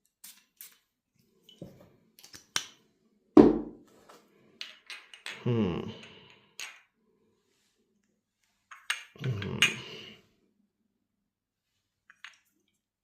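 A perfume bottle being handled and sprayed: a few light clicks and one sharp knock about three and a half seconds in. Twice a short low voiced "mmm" follows as the scent is tried.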